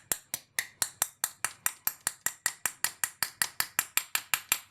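Quick, evenly spaced sharp taps, about six a second, from tapping a ball bearing back into a TBS Discovery 750 kV brushless motor's housing with a drift, seating it.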